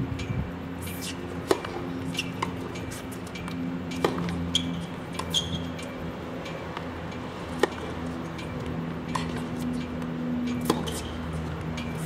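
Tennis ball struck by rackets in a baseline rally: sharp single pocks every one to two and a half seconds, over a steady low hum.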